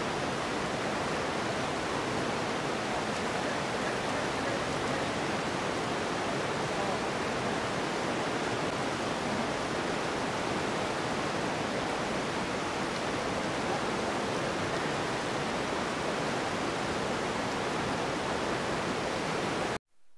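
Gray Wolf River water running, a steady even rush of sound; it cuts off suddenly near the end.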